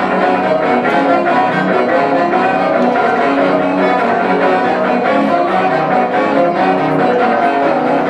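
Music: an electric guitar solo with a distorted tone, played over an accompanying track with dense sustained chords.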